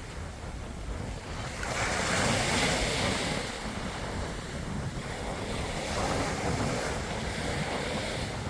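Sea waves breaking and washing up on a beach, swelling about two seconds in and again near six seconds, over a steady low rumble of wind on the microphone.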